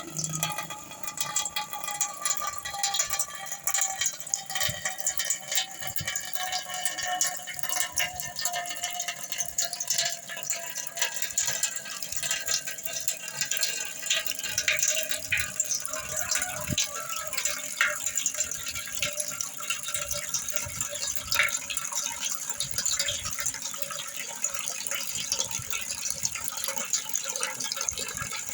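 Water dripping and dribbling in a dense, steady patter of small drops, with faint ringing tones that slowly sink in pitch.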